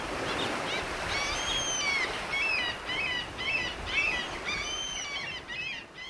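Birds chirping in quick repeated calls, starting about a second in, over a steady wash of sea surf.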